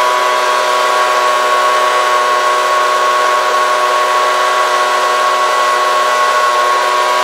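Homemade jet engine rig running at low speed: a loud, steady whine with several fixed pitches over a rushing hiss, unchanging throughout.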